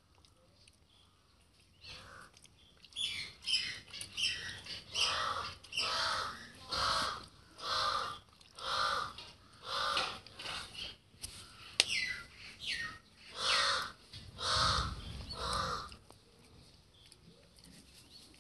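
A crow cawing over and over, about one call a second, starting about two seconds in and stopping a couple of seconds before the end, with a few shorter falling calls mixed in.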